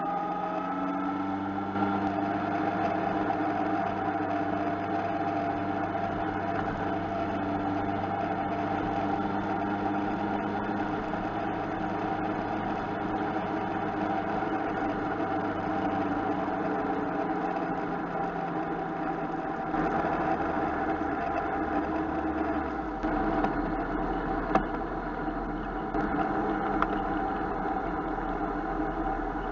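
Motorcycle engine running at road speed, heard from a handlebar-mounted camera along with wind and road noise. The engine note climbs over the first couple of seconds and then holds steady. In the second half it drops in several steps as the bike slows.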